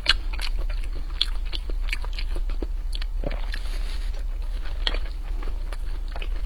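Mouth sounds of a person eating mapo tofu over rice: chewing with many short, irregular clicks.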